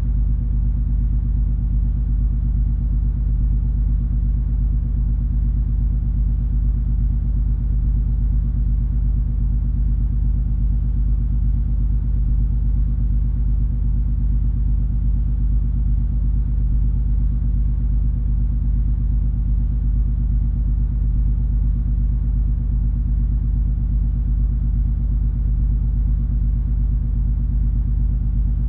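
Steady low drone of a large cruise ferry's diesel engines and machinery heard on board while under way: a deep rumble with a few steady hum tones over it.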